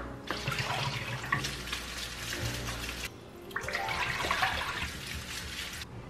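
Kitchen tap running with water splashing over grapes as they are rinsed, in two stretches with a short break about halfway.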